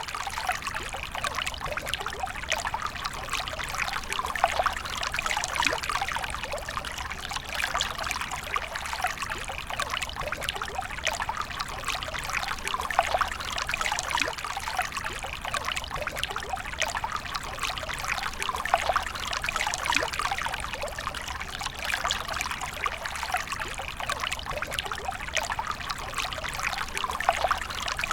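A steady stream of water pouring and trickling, with a constant fine splashing.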